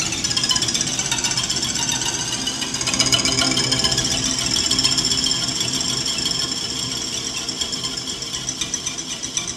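Solo cello improvising through live computer effects processing, making a dense, noisy, grinding electroacoustic texture rather than clear notes. Near the end the sound breaks into a quick, even pulsing.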